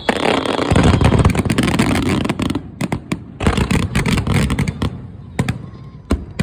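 Fireworks going off: a loud, dense burst about a second in, then many sharp crackling pops that thin out and fade.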